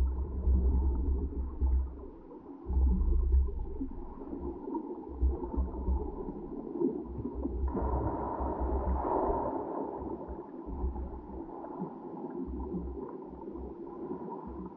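Muffled underwater water-flow noise picked up by a GoPro in its housing on a submersible towed behind a kayak. Irregular low rumbling surges with brief gaps, and a brighter rushing noise for about two seconds from about eight seconds in.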